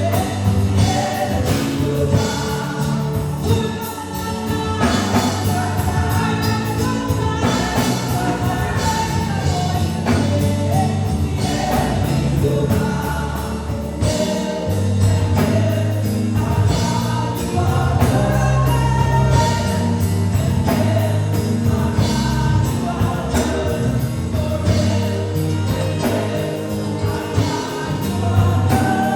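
Gospel worship music: a group of singers over a band, with sustained bass notes and a steady drum beat.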